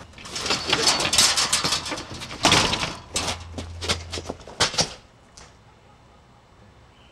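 A scuffle that ends with a small metal-framed table being knocked over: a couple of seconds of clattering and scuffling, a loud crash about two and a half seconds in, then a few sharp knocks.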